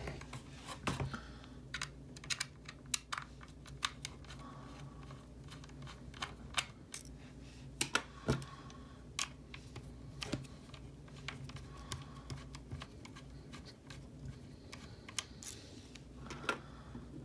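Small screwdriver turning out screws from the metal I/O bracket of a GeForce GTX 980 graphics card: scattered light, irregular clicks and ticks.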